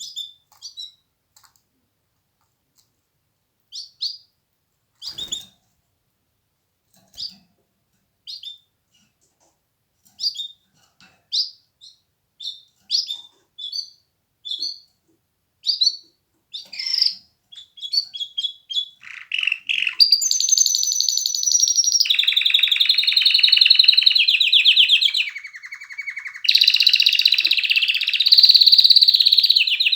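Domestic canary singing. It starts with scattered short high chirps and calls, then about two-thirds of the way through breaks into a loud, continuous, rapid trilling song that dips lower for a moment before resuming.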